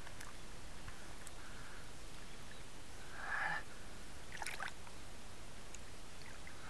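Shallow water sloshing and gurgling around a hand holding an asp in the water for release. The loudest gurgle comes a little past three seconds in, followed about a second later by a few short crackly splashes.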